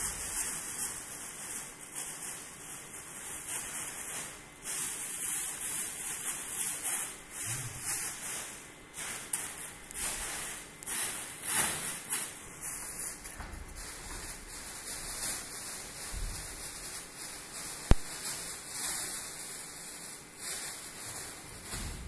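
Plastic bags rustling and crinkling in irregular bursts as hands rummage through them, with one sharp click near the end.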